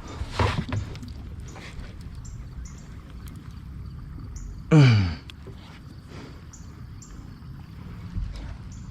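A man's short wordless groan, sliding down in pitch, about halfway through, as he strains against a big blue catfish he is reeling in from a kayak; around it, a low steady background with faint scattered ticks.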